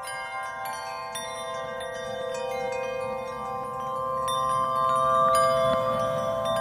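Background music of tinkling chimes over a held chord, slowly getting louder.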